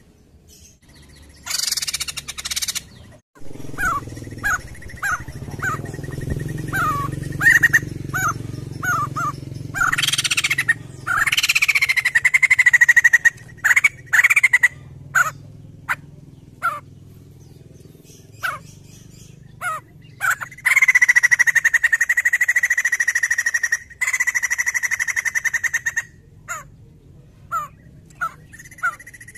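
White-crested laughingthrush singing: a run of short falling notes, a couple of rising whistled glides, and a long fast rattle on one pitch about two-thirds of the way through. A low rumble sits underneath during the first ten seconds or so.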